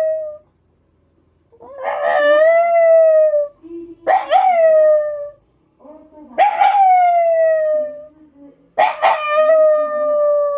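Black Shiba Inu howling: four long howls with short pauses between them, each sweeping up quickly and then held, slowly falling in pitch. The tail of a previous howl ends as the sound opens.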